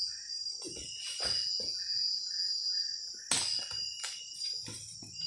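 Night chorus of crickets and other insects, a steady high-pitched trill, with shorter repeated chirping notes below it. Scattered rustles and knocks sound over it, the sharpest about three seconds in.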